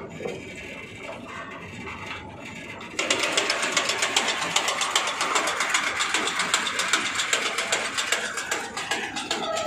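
An electric-motor, belt-driven three-shaft machine starts up about three seconds in and runs with a fast, even mechanical clatter.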